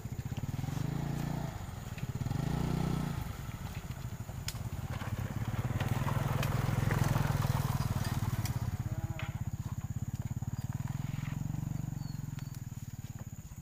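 Small motor scooter engine running steadily close by, its pitch rising and falling briefly about two to three seconds in.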